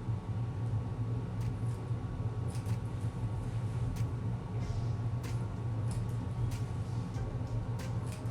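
Scissors snipping through a wig cap, a dozen or so short sharp snips at uneven intervals, over a steady low hum.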